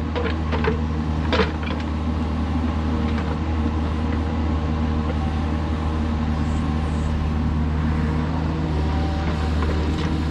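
Kubota mini excavator's diesel engine running steadily under work, with a few metallic clanks in the first couple of seconds.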